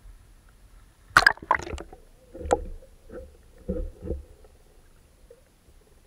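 Water splashing and knocking, muffled because the camera is under water: a loud burst of splashes about a second in, three separate knocks over the next few seconds, then only a low murmur.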